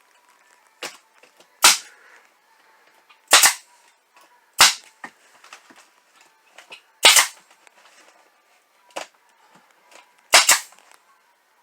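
Loud, sharp single cracks of fasteners being driven into wood, five strong ones at uneven spacing a second or more apart with a few fainter knocks between, as plastic sheeting and thin wood strips are tacked up over ceiling insulation.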